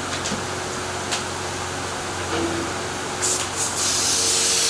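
A steady low hum under background noise. About three seconds in, a loud hiss starts and keeps going.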